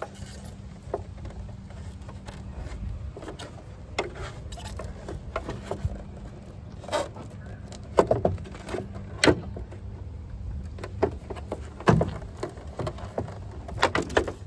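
Mercedes Sprinter van's plastic tail light housing being pulled and wiggled by hand off its mounting clips: irregular plastic clicks, knocks and scrapes, with several sharper knocks in the second half, over a low steady hum.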